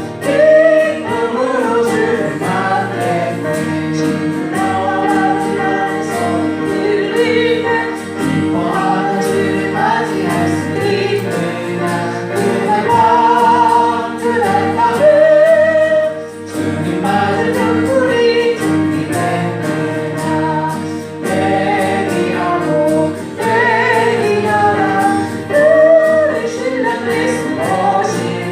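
A group of voices singing a Korean Christian hymn together, phrase after phrase, over steady held accompaniment.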